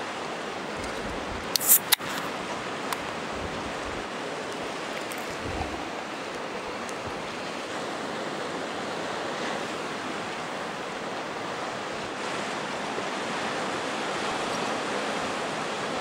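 Sea waves washing in a steady rush, with two sharp clicks about two seconds in.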